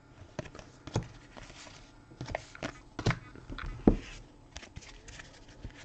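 Trading cards being handled on a table: scattered light clicks and taps with brief sliding rustles, one sharper click about four seconds in.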